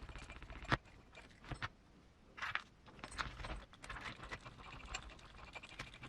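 Small clicks and scrapes of a hex driver working out the motor mount screws on a 1/18-scale RC buggy, with a sharp click about three-quarters of a second in.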